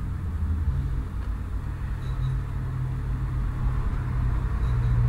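Low, steady rumble of a motor vehicle, with a hum that grows louder near the end.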